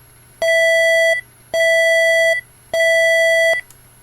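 Emergency alert system alarm, the one given as Indonesia's: a single-pitched electronic beep sounds three times, each held for almost a second with short gaps between, starting about half a second in.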